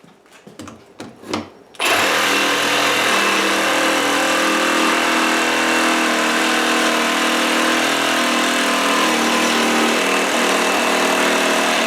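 Milwaukee M18 Fuel cordless reciprocating saw with a bimetal blade cutting through stacked 2x4 lumber. A few light knocks come first, then the saw starts about two seconds in and runs at a steady speed through the wood.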